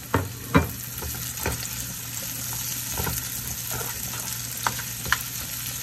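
Chopped onions, garlic, thyme and tomatoes sizzling in hot bacon fat in a frying pan, with a steady hiss. A spatula stirring them knocks and scrapes against the pan every second or so, loudest about half a second in.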